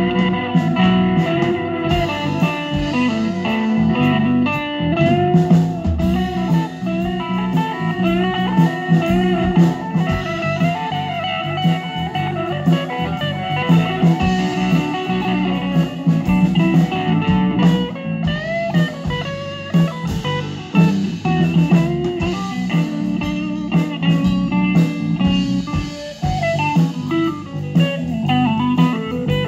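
Blues music without vocals: electric guitar playing bending lead lines over drums.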